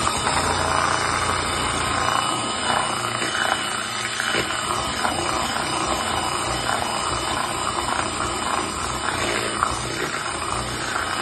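Electric hand mixer with twin wire beaters running steadily in a plastic bowl, beating melted chocolate into whipped eggs and sugar.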